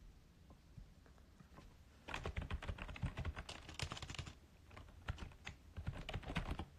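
Typing on a computer keyboard: a quick run of key clicks starting about two seconds in and lasting until near the end.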